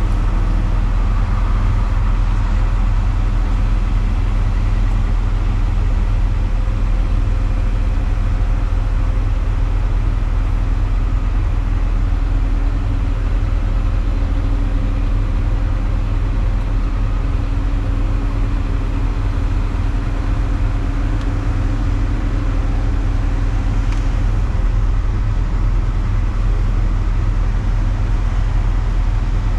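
Hitachi Zaxis 250 excavator's diesel engine running steadily, heard from inside the cab. A faint steady whine rides over the engine, growing stronger about halfway through and dropping out a few seconds before the end.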